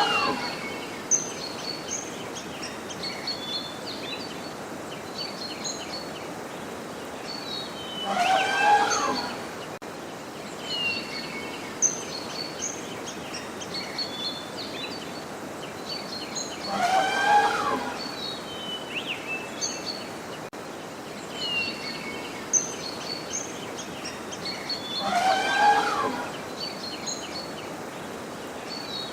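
Elephant trumpeting: a call of about a second, repeated four times about eight or nine seconds apart. Small birds chirp throughout over a steady outdoor hiss.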